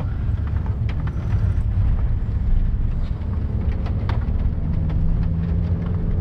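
Car engine and road noise heard from inside the cabin while driving, a steady low drone with a few faint ticks.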